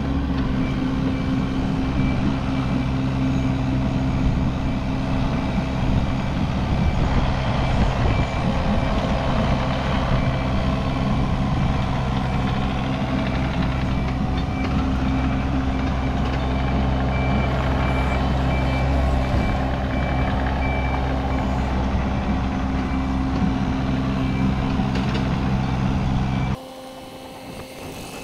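Diesel mini excavator engine running steadily at high revs, with a high-pitched beeping alarm sounding over it. Near the end the sound cuts abruptly to a quieter hum.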